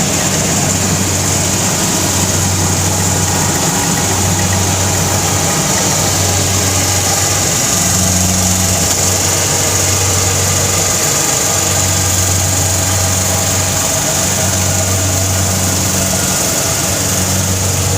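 Rice harvester's engine running steadily, with an even mechanical hum and hiss.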